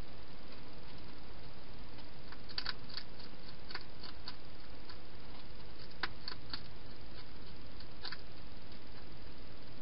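A wild European hedgehog chewing its food, making small sharp clicks at irregular intervals, in clusters a few seconds in, at about six seconds and again near eight seconds, over a steady background hiss.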